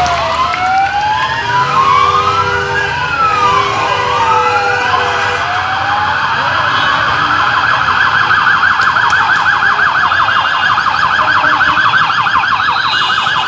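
Several vehicle sirens sounding together. In the first half, overlapping slow wails rise and fall out of step; about halfway through they change to a fast yelp.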